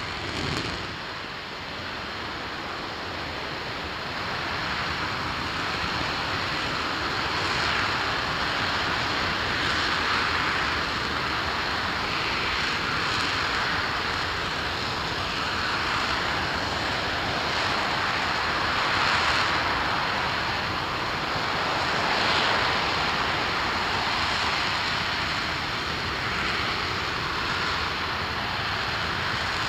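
RS-25 liquid-hydrogen/liquid-oxygen rocket engine firing steadily on a test stand during a hot-fire test: a loud, continuous rushing noise that swells and eases every few seconds.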